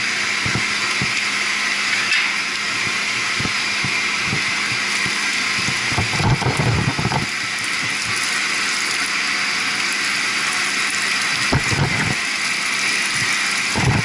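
Condenser water draining out of a loosened pump strainer housing, pouring and splashing steadily onto the concrete floor, with a few low thuds around the middle and near the end.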